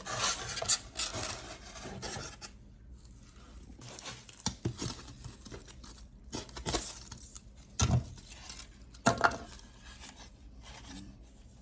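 Material being cut off by hand, with rapid rasping cutting strokes for the first two seconds or so. After that come quieter handling noises, with scattered clicks and a few knocks and thumps later on.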